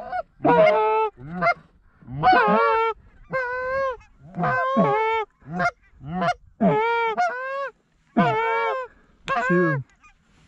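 Goose honking: a quick series of a dozen or so loud honks, each breaking from a low note up to a higher one, the call used to bring Canada geese in over a decoy spread.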